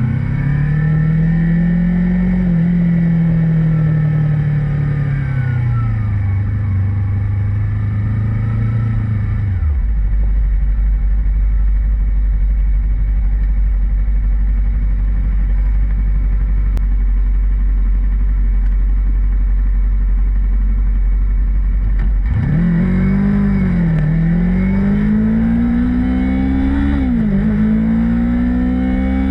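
Motorcycle engine under way, its note rising and falling as it accelerates and eases off. About ten seconds in the engine note gives way to a steady low rumble for some twelve seconds. Then the note climbs again, dipping briefly near the end as the gears shift up.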